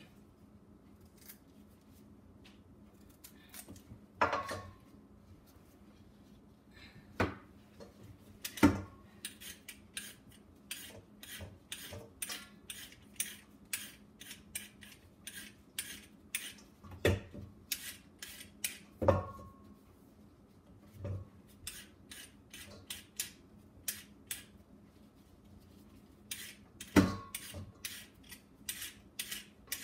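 A carrot being peeled over a metal bowl: quick, repeated short scraping strokes, about two or three a second, with a few louder knocks against the bowl that ring briefly. A faint steady hum runs underneath.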